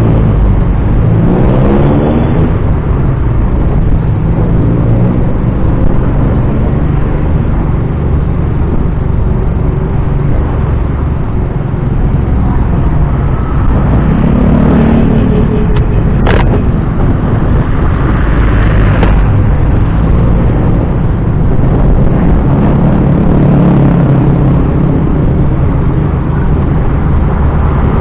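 A small motorcycle's engine running while riding, under heavy wind and road noise on the microphone. The engine pitch rises as it accelerates in the first couple of seconds and swells again about halfway through and near the end, with one sharp click about 16 seconds in.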